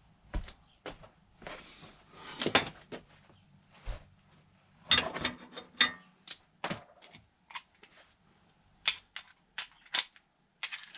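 Metal hand tools clinking and clicking: sockets and a wrench being handled and fitted, in a dozen or so separate sharp knocks, a few of them louder.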